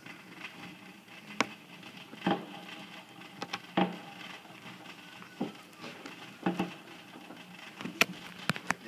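Fireworks going off: a scattered series of sharp bangs and cracks, three of them in quick succession near the end.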